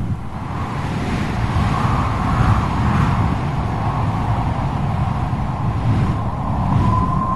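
Steady rumble of a motor vehicle, with no clear revving or passing. A steady high tone comes in near the end.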